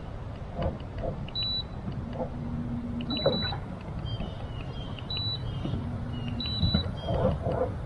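Steady wind rumble over the microphone on a small boat in rough weather, with four short high electronic beeps spread through it and a brief low hum twice.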